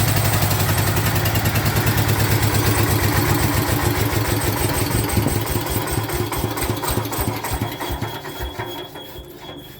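Diesel generator engine being shut down: its even firing beat slows and spreads out over the last few seconds, and the sound fades steadily as the engine runs down to a stop.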